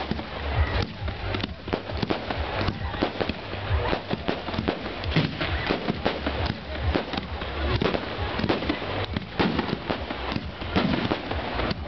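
Fireworks display: a dense, irregular run of bangs and crackling reports, many in quick succession.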